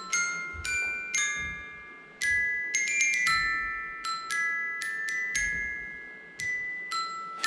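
Music: a slow melody of single bell-like notes on a glockenspiel-like mallet instrument, each note struck and left to ring out, sometimes two or three in quick succession.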